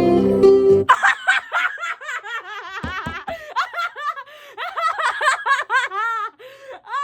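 A young child's high-pitched voice babbling and giggling in quick repeated syllables that rise and fall in pitch, like "ga gallery ga gallery". Background music plays briefly at the start.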